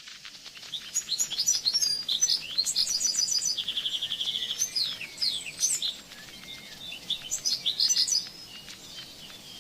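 Songbird singing: a fast, varied run of high chirps and whistled notes, with a brief even trill about four seconds in, then a short pause before more phrases.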